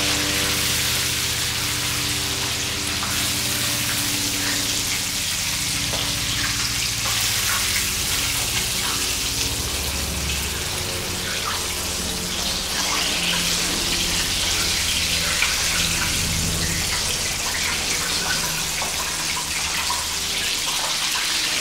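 Chicken drumsticks deep-frying at high heat in a wok of oil: steady sizzling with small crackles throughout, the high-heat second fry that crisps the coating.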